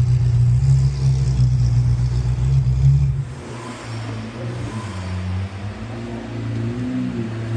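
Ferrari 458 Italia's 4.5-litre V8 running loud and steady at raised revs, then dropping off about three seconds in to quieter, lower running.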